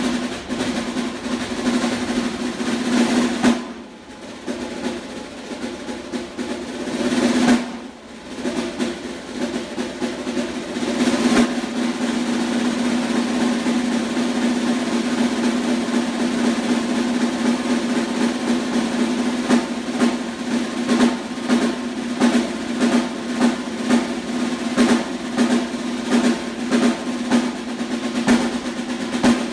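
Solo snare drum played in dense rolls. The roll drops soft about 4 s in and swells back up, drops again near 8 s and builds, then runs on steadily with regular accented strokes a little more than once a second in the second half.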